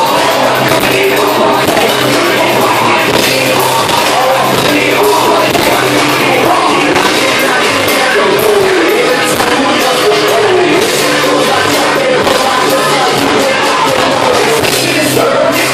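Live rock band playing loud, with electric guitar, drums and a vocalist on microphone.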